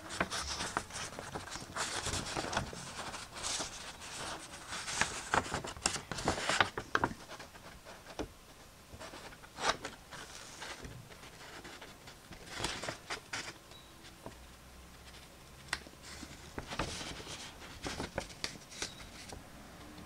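A hand-held sheet of paper rustling and crackling in irregular bursts as it is shifted and held up, busiest in the first seven seconds with further flurries later.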